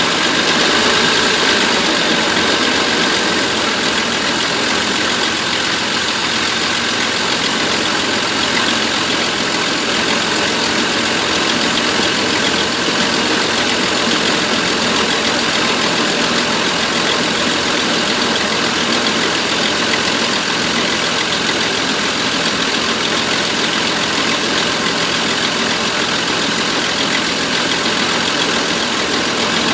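Van engine idling, running with a misfire.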